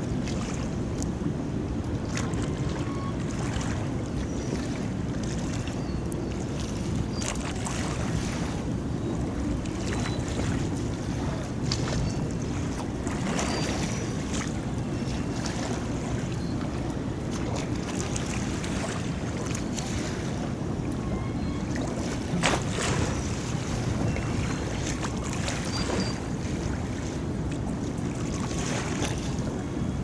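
Harbour seawater lapping and splashing against the shore, over a deep steady rumble of wind and sea, with now and then a sharper slap of water.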